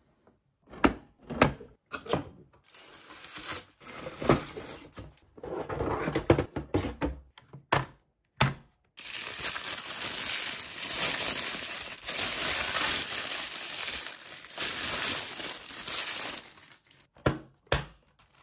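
Thin plastic packaging bag crinkling and rustling as it is handled and pulled off a hard plastic toy part, with sharp clicks and knocks of hard plastic pieces about a second in and again near the end.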